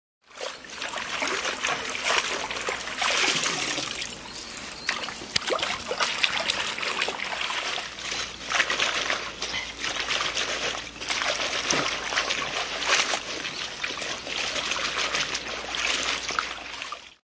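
Hands scrubbing and swishing bunches of jjokpa (small Korean green onions) in a basin of water: continuous splashing and trickling that swells and eases every second or so.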